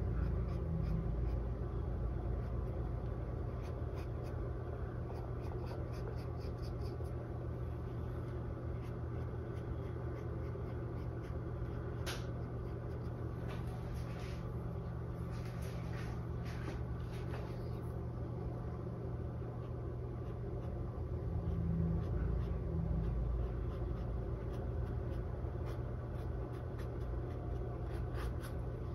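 Fine paintbrush stroking on a stretched canvas: soft, scratchy brush strokes with a few light ticks, over a steady low hum.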